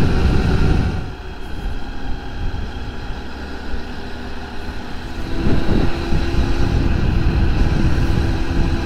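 Honda Monkey's small single-cylinder four-stroke engine running on the move, with wind rushing over the microphone. The noise drops about a second in and builds again about halfway through, when a steady engine tone comes in.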